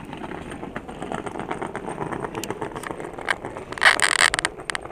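Railway station platform ambience: footsteps and small clicks from passengers moving about, then a sudden loud hiss lasting about half a second near the end.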